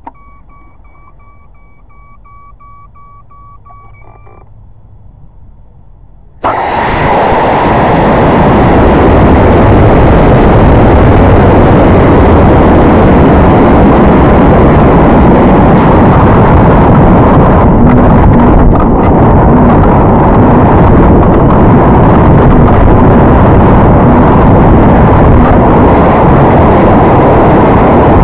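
Repeated short electronic beeping for about the first four seconds. Then, about six and a half seconds in, the model rocket's motor ignites with a sudden loud rush, and wind noise over the onboard camera's microphone goes on loud, steady and distorted as the rocket flies and falls.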